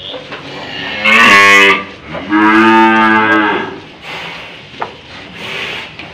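A cow mooing twice, the second call longer, as it is held by the head while a rope is fitted through its nose.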